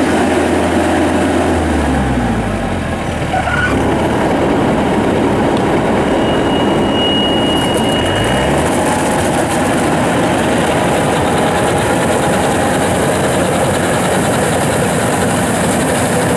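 Yanmar AW82 rice combine harvester running while it cuts and threshes rice, a steady loud machine noise. The engine note drops about two seconds in and climbs again around eight seconds.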